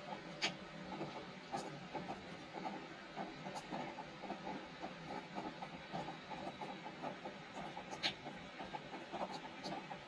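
Rain falling on a wooden deck: a steady patter of many small drops, with a sharper, louder drip about half a second in and another about eight seconds in.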